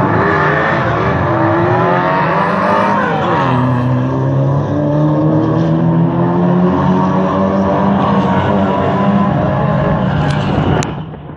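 Several Lightning Rod stock-car engines running together on the oval, their pitches rising and falling as the cars rev through the bends. Near the end there is a sharp click and the sound drops away.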